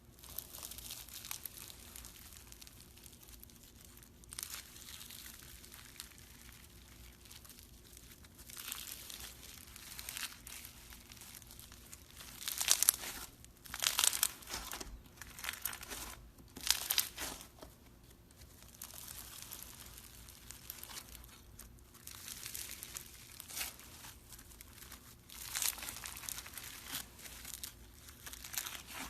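Slime being squeezed and stretched by hand, making irregular bursts of high, crackly noise that are loudest a few times near the middle.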